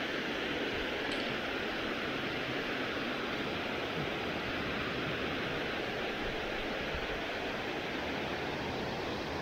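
Steady rush of a waterfall pouring over a wide rock ledge into a river pool, with the river flowing past below it.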